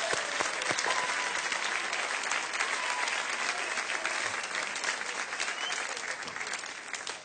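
Studio audience applauding with dense clapping that dies down near the end.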